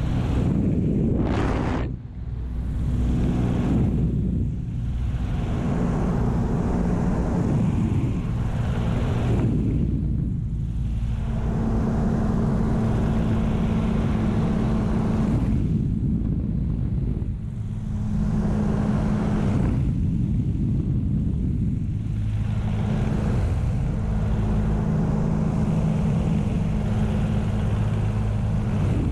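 P-40 Warhawk's V12 engine and propeller droning steadily in flight, heard from inside the cockpit with the rush of air over the canopy. Its pitch shifts a few times. The engine runs on through an oil leak that the pilot puts down to probably just a loose oil cap.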